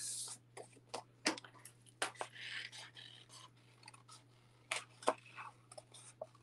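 Small crafting scissors snipping through cardstock around a stamped tree image, in irregular crisp snips and clicks, with paper rustling as the card is picked up and turned.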